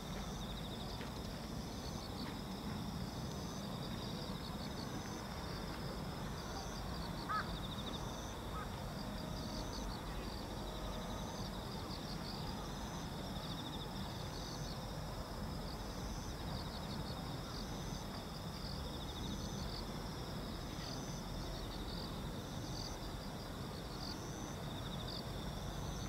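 Evening insect chorus: a steady high trilling with short, regular chirps about once a second, over a low rumble. A brief bird call comes about seven seconds in.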